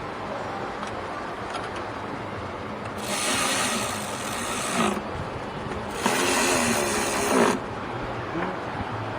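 Two rasping, rubbing noises, each about two seconds long, about three and six seconds in, with a few faint clicks before them.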